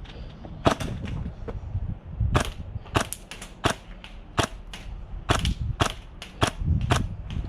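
Airsoft guns firing single shots: about a dozen sharp pops at irregular intervals, clustered in the second half.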